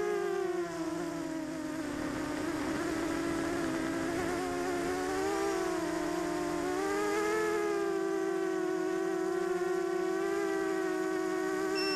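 Diatone 250-size quadcopter's brushless motors and propellers buzzing in flight, heard from the onboard camera. The pitch drops about a second in, climbs again around the middle as the throttle changes, then holds steady.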